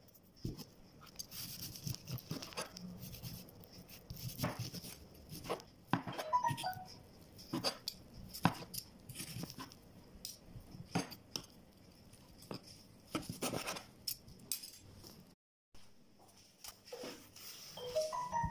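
Kitchen knife tapping and knocking against a cutting board in irregular, scattered strokes as baked chicken breasts are cut up, with the odd clink.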